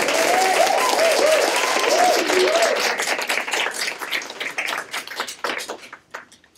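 Small audience applauding after a song, with a wavering cheer over the first couple of seconds; the clapping thins to a few scattered claps and dies away near the end.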